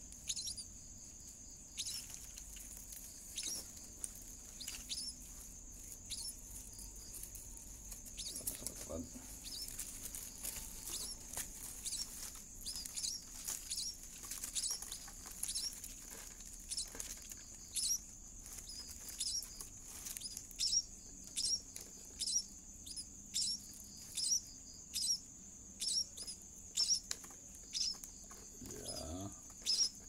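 Nestling birds making short, high, thin peeping calls, repeated irregularly and coming more often in the second half. These are the begging calls of gaping chicks, heard over a steady high-pitched hum.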